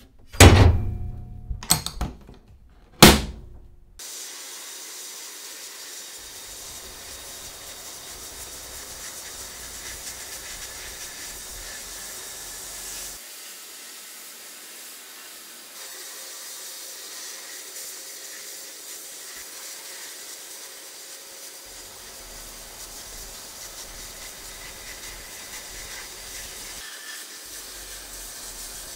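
Three loud knocks in the first few seconds. Then the steady hiss of a sandblasting cabinet's blast gun spraying abrasive onto a rusty axe head, stripping it to bare metal.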